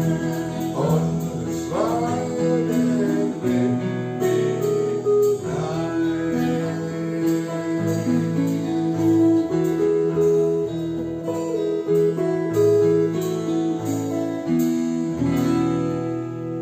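Instrumental close of a folk song: acoustic guitar strumming in an even rhythm over held notes from other instruments. The level starts to fade near the end.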